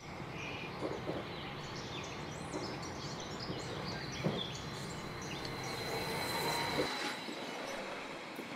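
Battery-powered Playmobil toy train running along its plastic track with a steady low rumble, while birds chirp over it.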